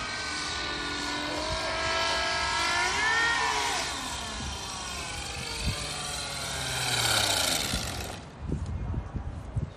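Small fixed-wing drone's engine as it flies past low, twice, its note rising and falling in pitch with each pass. The engine sound cuts off suddenly about eight seconds in, followed by a few knocks.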